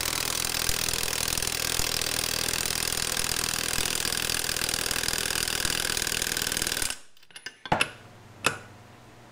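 Cordless impact wrench hammering steadily on a Ford 8.8 differential's pinion nut, crushing the crush washer to set pinion bearing preload. It cuts off about seven seconds in, followed by a few sharp metal clinks.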